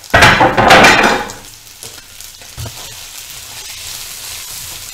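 Sliced onion and tomato frying in hot oil in a pan: a loud rush of sizzling noise for about the first second, then steady, quieter sizzling while a spatula stirs, with a single knock partway through.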